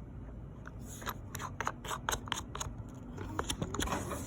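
Table leg being turned by hand to screw it onto its bolt, giving a run of irregular sharp clicks and scrapes, a few a second, that then thin out.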